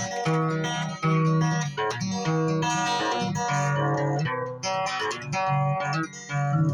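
Guitar in dobro tuning played solo and improvised: single plucked notes and short phrases ring out one after another, with brief breaks between phrases.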